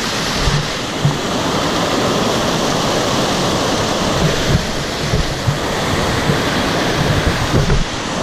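Steady rushing of a waterfall cascade, with a few brief low thumps.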